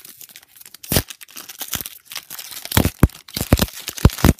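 Wrapper of an Upper Deck hockey card pack being torn open and crinkled: a run of sharp, irregular crackles, loudest in a cluster in the second half.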